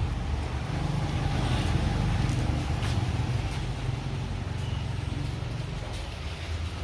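A road vehicle on the move: a steady low engine and road rumble with a light noise haze over it.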